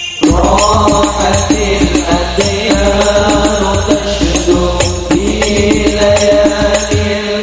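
Hadroh ensemble performing: several male voices singing an Arabic devotional song in unison into microphones over a steady beat of rebana frame drums and a bass drum, amplified through a PA. The band comes in hard just after the start following a brief lull.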